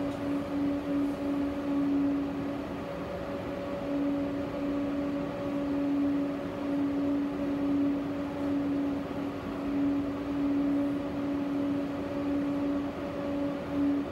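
Tram in motion, heard from aboard: steady running noise with a constant electric hum that pulses rapidly near the start and near the end.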